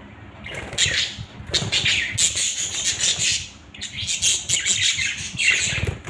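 Budgerigars chirping and chattering in bursts, with a short pause a little past the middle.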